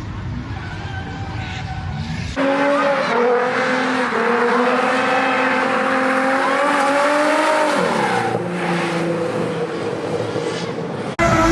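Drift car's engine held at high revs with tyre squeal as the car slides, the revs dropping about eight seconds in. The sound changes abruptly twice, as edited clips switch.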